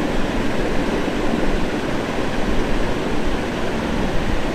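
Hands sloshing and rubbing in a steel bowl of water, rinsing off soap lather, heard as a steady noisy splashing.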